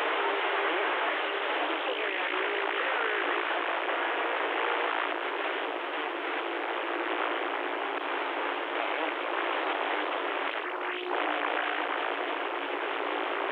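CB radio receiver static: a steady hiss through the radio's speaker, with faint, garbled voices and a few faint steady tones drifting in and out of the noise.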